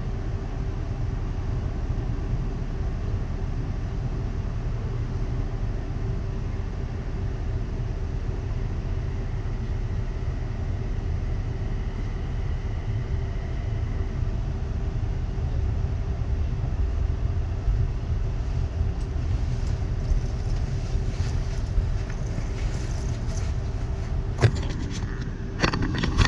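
Class 360/2 electric multiple-unit train running, a steady low rumble with a constant hum. A run of crackles and a few sharp knocks comes near the end.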